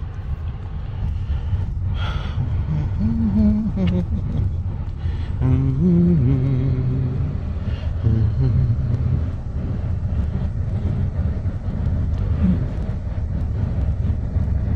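Car driving, heard from inside the cabin: a steady low rumble of engine and road noise. A few short pitched sounds sit over it in the middle.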